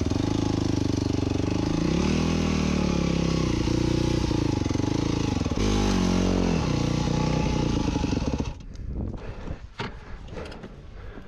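Yamaha dirt bike engine running with several short throttle blips that rise and fall as the bike is pushed up a rock step. About eight and a half seconds in, the engine cuts out suddenly as the bike goes over onto its side, followed by scattered knocks and scrapes.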